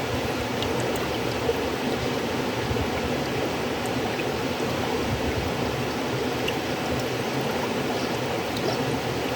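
River water flowing steadily, an even rushing noise with faint small splashes and drips scattered through it.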